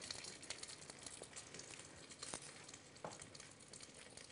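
Faint sizzling of a folded, filled crepe frying in a pan, with a few light clicks.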